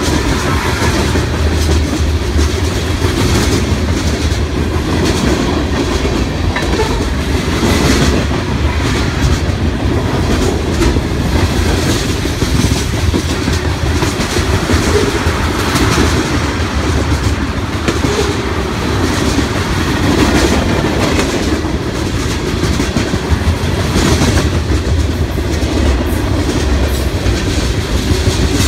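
Freight cars of a Norfolk Southern mixed freight rolling steadily past close by, tank cars and then covered hoppers: a continuous rumble with the wheels clicking over rail joints.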